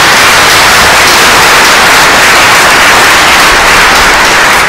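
Loud, steady hiss like static or white noise, strongest in the upper middle, with no pitch or rhythm.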